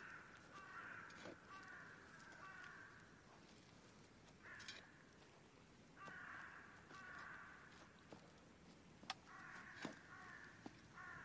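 Faint crows cawing in several bouts of harsh caws, with two sharp clicks near the end.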